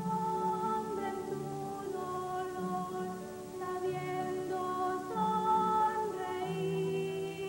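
Children's choir singing a slow song, holding long notes that change about once a second over a low accompanying line.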